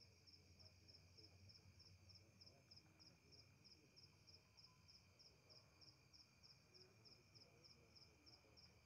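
Faint night insects: a steady high chirping, pulsing about three to four times a second, over a second continuous high drone, with otherwise near silence.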